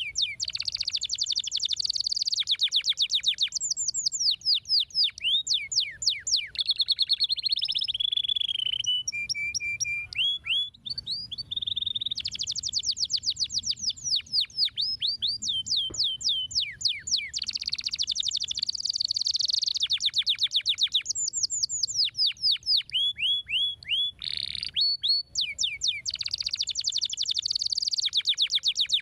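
Domestic canary singing: long runs of rapid trills, each a fast series of high notes, broken by short pauses and a few lower held notes.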